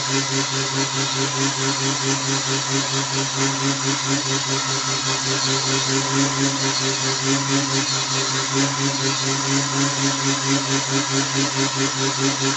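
Small 150-watt motor of a budget mini wood lathe running steadily with a hum and whine, while a hand chisel cuts a spinning wooden spindle with a steady scraping hiss. The sound pulses lightly a few times a second.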